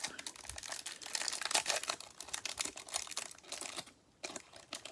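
Clear plastic trading-card pack wrapper crinkling as gloved hands work a stack of cards out of it: a dense run of small crackles, with a brief lull about four seconds in.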